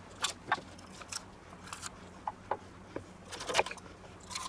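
Crisp snapping and crunching of raw red bell peppers as their cores and seed clusters are torn and cut out by hand. The snaps come irregularly, a few close together about three and a half seconds in.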